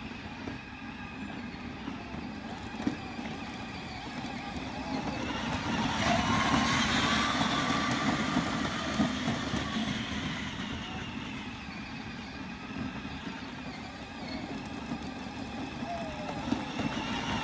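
Battery-powered ride-on toy four-wheeler driving across grass: a steady whine from its electric drive motor and gearbox over a low rumble, louder from about six seconds in for a few seconds.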